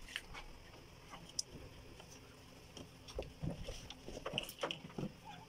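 A towel rustling, with scattered soft clicks and knocks, as hands rub and handle a newborn puppy in it. The sounds get busier about halfway through.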